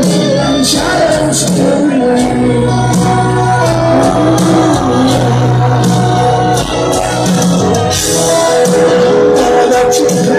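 Live rock band playing a slow piano ballad through a stadium PA: grand piano, a sung lead vocal line with held notes, a sustained low bass note and regular cymbal hits, heard from among the audience.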